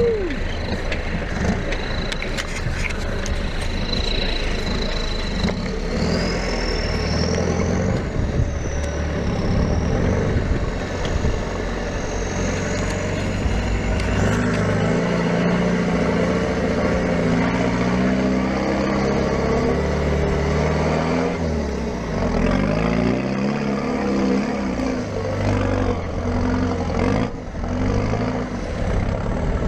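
Land Rover Defender 90's engine pulling at low speed up a rocky track, revs rising and falling as it crawls, with tyres crunching over loose stone.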